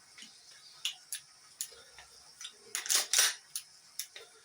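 Sharp clicks and clacks of a Umarex Glock 17 Gen 4 replica pistol being handled, about eight in all, the loudest two close together about three seconds in.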